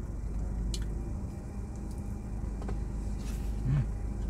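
A person chewing a mouthful of sate lilit, with faint wet mouth clicks, over a steady low hum. There is a brief low hum near the end.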